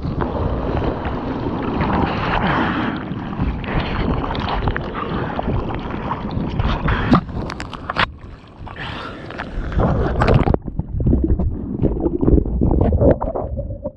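Breaking surf whitewater rushing and splashing over a camera at water level, with sharp splashes. About ten seconds in the sound turns muffled as the camera sits half in the water.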